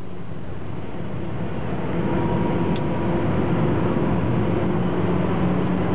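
Car engine and road noise heard from inside the cabin at speed, growing louder over the first two seconds and then holding steady with a constant engine drone.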